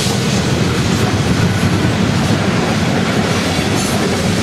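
Union Pacific freight train of coal hopper cars rolling past, a steady rumble of steel wheels on the rails.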